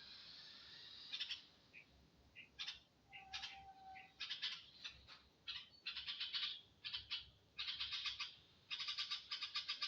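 Baby birds calling in quick, repeated bursts of high chirps, coming more often and louder toward the end.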